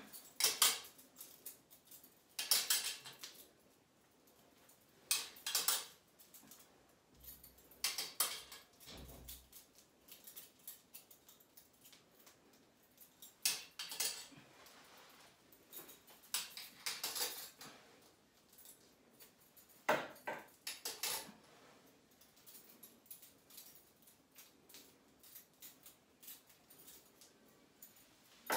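Metal double-glide shower curtain hooks in a nickel finish clinking and jingling against each other and the metal shower rod as they are hung on one at a time, in short sharp rattles every two to four seconds.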